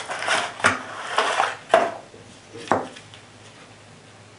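A cardboard ammunition box being handled and its plastic cartridge tray slid out: rustling and scraping with three sharp clicks or knocks, stopping about three seconds in.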